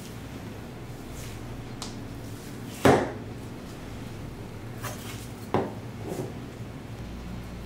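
A butcher's knife and a wagyu beef knuckle knocking against a cutting board while the meat is trimmed and turned: a loud knock about three seconds in and another about five and a half seconds in, with a smaller knock and faint ticks between, over a steady low hum.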